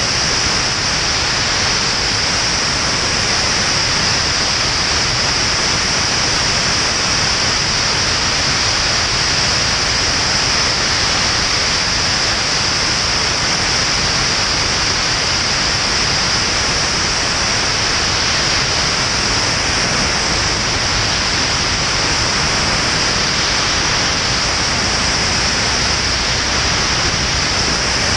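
Steady rush of wind over a camera mounted under the wing of a Van's RV-10 in flight, an even noise with a strong high hiss and no clear engine note standing out.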